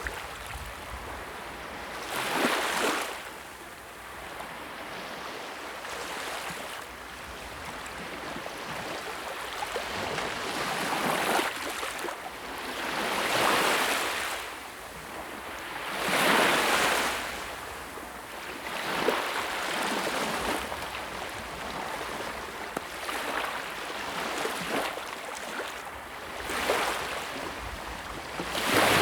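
Sea waves breaking and washing on a shore, a rushing hiss that swells and falls every few seconds, with louder breakers about 2.5, 13.5, 16.5 seconds in and again near the end.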